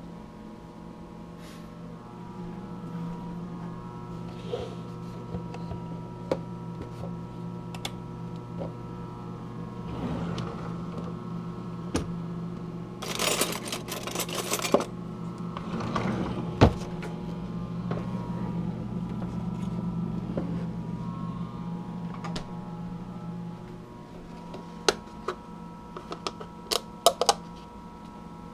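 A small electrical appliance humming steadily, louder for about twenty seconds before it drops back near the end, with scattered clicks, a short clatter in the middle and a few sharp knocks near the end.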